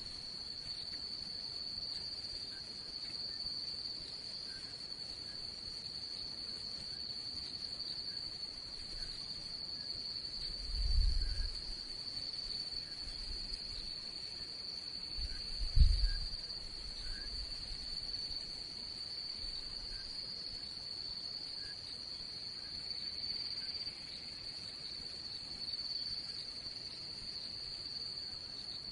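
Crickets trilling in one steady high note through the night, with faint short chirps beneath. Two dull low thumps come about eleven and sixteen seconds in, the second the louder.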